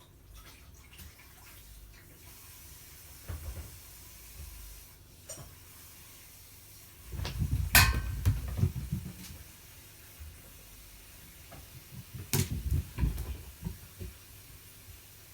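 Cats play-fighting: bodies thumping and paws scuffling on the floor in two bouts, about seven seconds in and again about twelve seconds in, each starting with a sharp knock.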